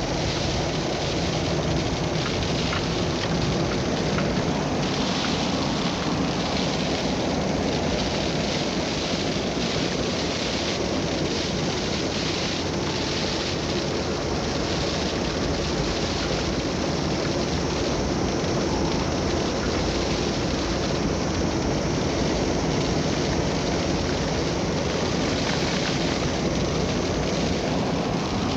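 Steady rushing noise of a blizzard, even throughout with no separate events.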